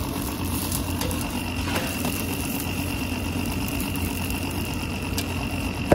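Parathas cooking on a large, hot street-food griddle: a steady low rumble with faint sizzling, and a few light taps of a metal spatula.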